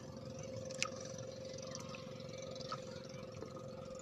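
Low, even rumble of water and wind around a small outrigger boat at sea, with a faint steady hum throughout and a single click about a second in.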